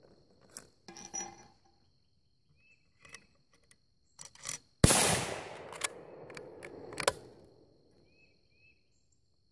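A single shot from a Remington 722 bolt-action rifle in .308 Winchester about five seconds in, loud and echoing away over a couple of seconds. Short clicks of the rifle being handled come before it, and two sharp clicks follow it.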